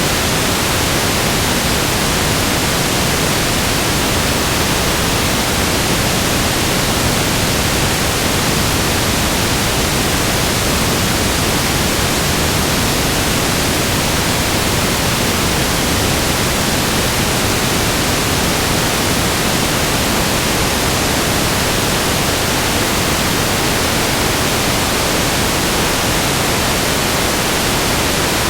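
Loud, steady static hiss: an even, unchanging noise spread from deep to very high pitches, strongest at the top.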